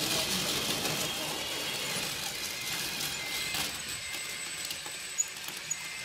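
Scale RC model crawler excavator driving and turning, its electric drive and tracks making a steady whirring hiss that eases off after about three and a half seconds.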